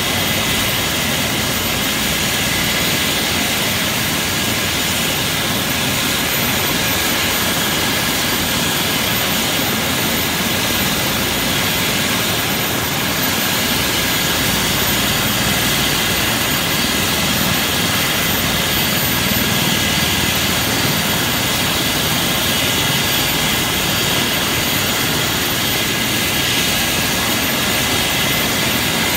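Eurocopter EC135 twin-turboshaft helicopter running on the ground with its rotor turning: a steady turbine whine over the rush of the rotor.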